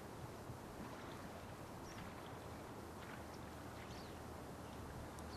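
Faint steady rushing of a flowing river current, with a few brief, faint high chirps.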